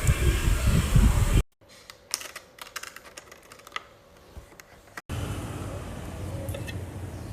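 Rumbling, wind-like noise that cuts off after about a second and a half. A run of light, irregular clicks and taps follows, then a steady low noise from about five seconds in.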